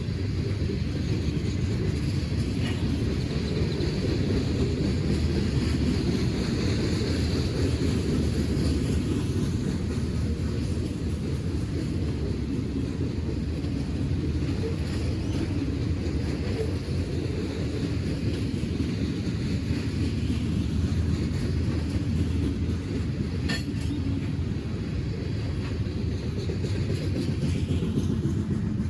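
Train cars rolling past on the rails with a steady rumble, and one sharp click late on.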